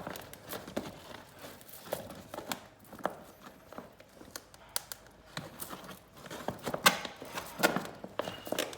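Thibaut leather wallpaper crinkling and rustling with scattered sharp clicks as it is handled and cut to fit at a corner cutout, the loudest crackles coming near the end.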